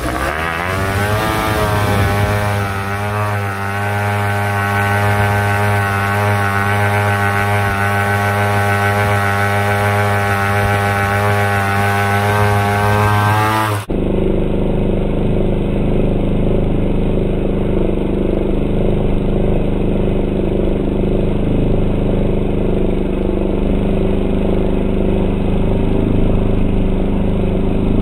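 Hangkai 3.5 hp two-stroke outboard motor revving up from idle in the first second, then running steadily at high speed. About 14 s in, the sound cuts to the same engine at a lower, steady running note.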